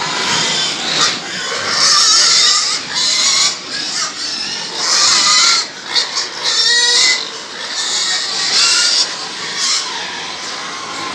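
A pen of young pigs squealing and grunting, with several loud, high-pitched squeals of about a second each.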